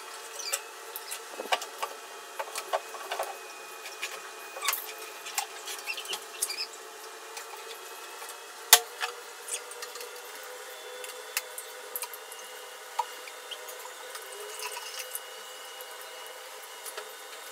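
Handling noises from a wooden aquarium hood being lifted off the tank and turned over: scattered knocks, clicks and rubbing, densest in the first several seconds, with one sharp knock just under nine seconds in. A faint steady hum runs underneath.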